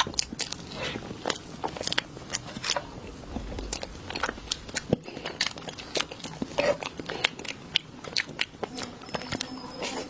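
A person biting and chewing crunchy food, with many sharp, irregular crunches several times a second.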